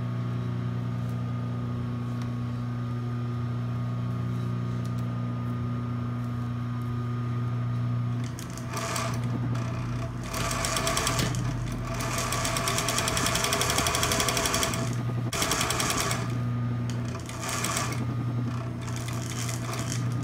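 Industrial sewing machine: a steady motor hum for about eight seconds, then fast stitching in four bursts with brief pauses between, as a seam is sewn through muslin.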